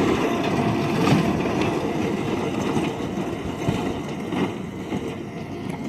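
Tractor pulling a round hay baler, running steadily and slowly growing fainter as it moves off.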